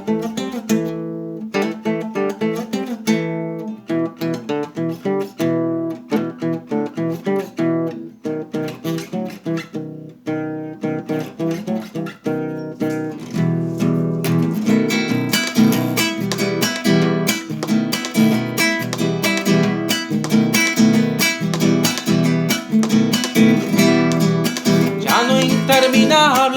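Acoustic guitar playing a song's instrumental introduction: picked notes at first, then from about halfway a fuller strummed accompaniment.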